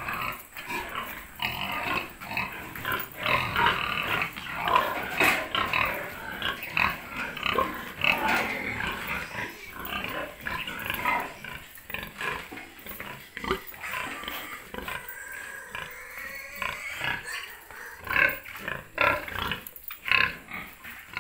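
Many pigs in metal stall crates grunting and squealing loudly and continuously, with scattered sharp knocks.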